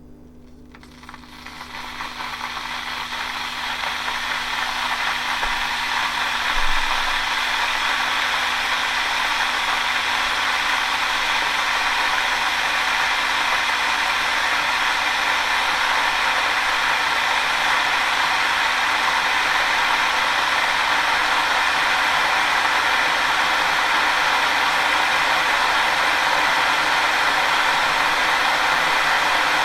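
Electric kettle heating water: a hiss that starts about a second in, swells over the next few seconds and then holds steady and loud.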